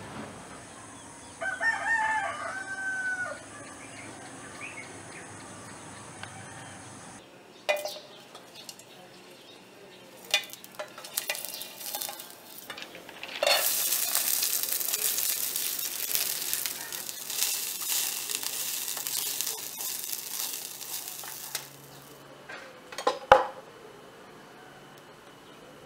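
A rooster crows once near the start. Then garlic fries in oil in a small pan, stirred and tapped with a wooden spatula; the sizzling swells up about halfway through, stops a few seconds before the end, and is followed by one sharp knock.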